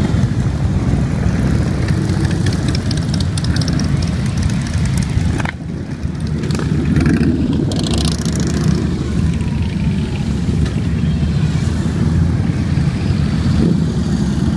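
A steady stream of motorcycles, largely Harley-Davidson V-twin touring bikes, rumbling as they ride past one after another. The sound drops briefly about five and a half seconds in, then the rumble picks up again.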